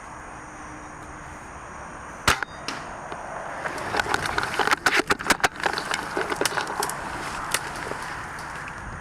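Airsoft gunfire: a single sharp shot a little over two seconds in, then a couple of seconds of rapid, irregular shots and clicks in the middle, and one more shot near the end.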